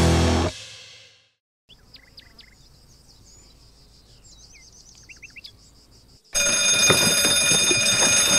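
Rock music fades out, then birds chirp and trill faintly for a few seconds. About six seconds in, a loud alarm-like ringing starts, signalling an emergency callout.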